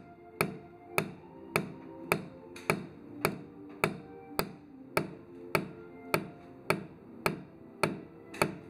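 Steady hand-hammer blows, a little under two a second, driving wooden treenails (wood nails) into holes in a wooden ship's hull frame.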